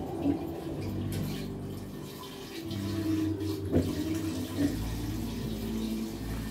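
Hitachi SF-120HJ top-loading washing machine starting its spin-dry cycle with water and clothes loaded: water running out through the drain hose over a steady low machine hum. A deeper rumble joins about two-thirds of the way through.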